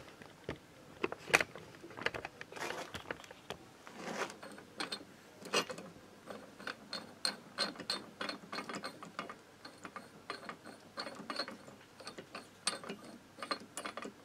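Ratchet wrench clicking in short, irregular runs of a few clicks a second as a socket is turned on it by hand, after a few metal knocks of tools against each other in the first seconds.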